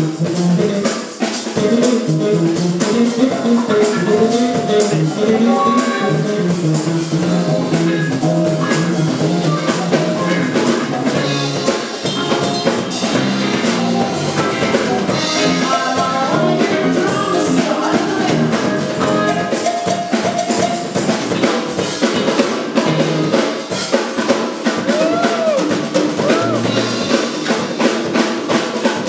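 Live band playing a song, with drum kit, bass and sung vocals over a steady beat, picked up by a handheld recorder in the audience.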